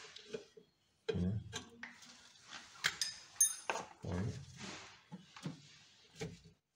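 Metal clinks and knocks of a spanner working on a steel brake-line fitting at a rear drum brake, a few of them ringing briefly near the middle.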